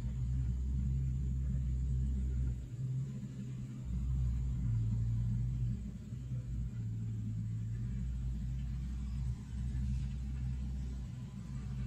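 Low, steady rumble of heavy mining diesel engines from a Hitachi hydraulic excavator and a BELAZ haul truck, swelling and easing every few seconds as the excavator works.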